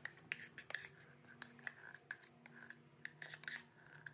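A metal spoon scraping thick sweetened condensed milk out of an opened tin can: a run of quiet, irregular short scrapes and clicks.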